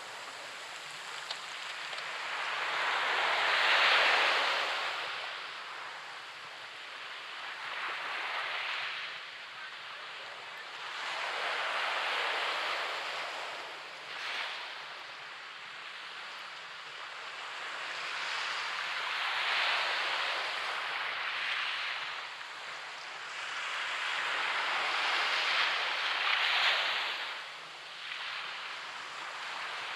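Small surf breaking on a sand beach, each wave swelling up and washing out, a new one every four to six seconds.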